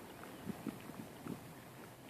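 Faint footsteps during a walk: a few soft thuds about half a second in and again just past a second, with light ticks in between.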